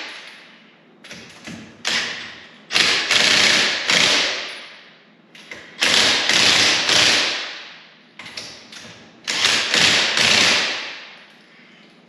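Impact driver hammering lug nuts tight on a wheel, in about six bursts of a fraction of a second to about a second and a half each, with pauses between.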